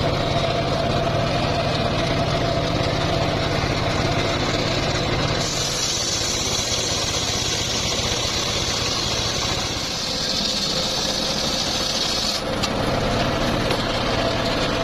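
Homemade circular sawmill running steadily. From about five seconds in until about twelve seconds in, a higher-pitched noise joins it as the blade cuts through teak wood.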